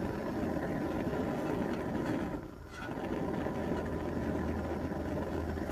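Camp Chef Ranger 2 propane stove's three-ring burner, its orifice drilled out from 1.2 to 1.6 mm, burning at a high flame with a steady rushing sound and a low hum under it. The sound dips briefly about two and a half seconds in. The flame is still a little starved of air, so it is not burning cleanly.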